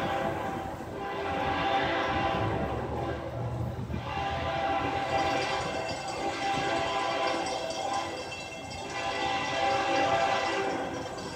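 Florida East Coast Railway locomotive horn sounding a series of long blasts of several tones at once, with short breaks between them, as the train approaches a grade crossing.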